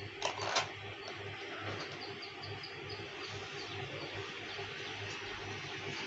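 Two light taps on a cardboard sheet about a quarter and half a second in, while it is marked with a pencil around a small box. Under them runs a steady background hiss with a low hum and faint, quick high chirps in runs.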